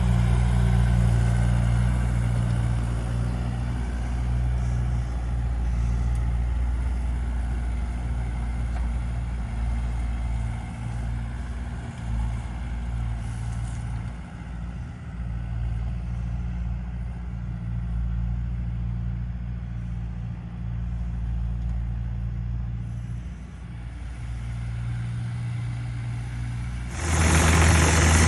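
Tractor engine running steadily while towing a box grader over turf, its sound weakening as the tractor pulls away. About a second before the end it cuts abruptly to a louder, hissier engine: a mini excavator running.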